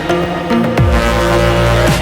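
Electronic dance music in a dubstep style with a heavy sustained bass, the bass sliding down in pitch about a second in and again near the end.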